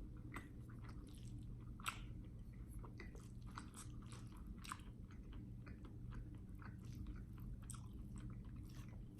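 A person chewing a mouthful of escargot fried rice close to the microphone: soft, irregular wet mouth clicks and smacks.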